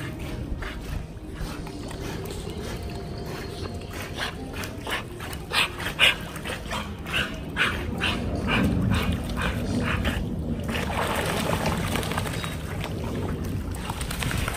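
A pit bull giving a quick string of short, high cries, about three a second, from about four to eight seconds in. Near the end, a steady rush of splashing water.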